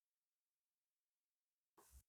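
Near silence, with one short faint noise just before the end.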